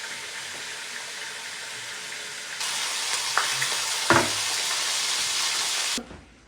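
Bacon sizzling in a frying pan as a steady hiss that gets louder a little under halfway through, with a couple of light knocks in the middle. The sizzle cuts off suddenly near the end.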